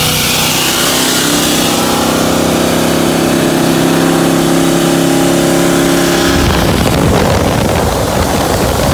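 Car engines at full throttle in a side-by-side street race, a loud steady engine note that climbs slowly for about six seconds. About six and a half seconds in the engine note cuts off, leaving a loud rush of wind and road noise as the throttle is lifted.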